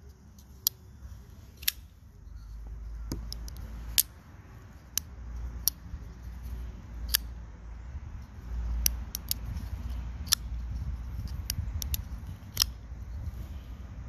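Spyderco Para 3 folding knife being worked open and shut, giving about a dozen sharp metallic clicks at irregular intervals as the blade snaps out and the compression lock engages and releases, over a low rumble of handling.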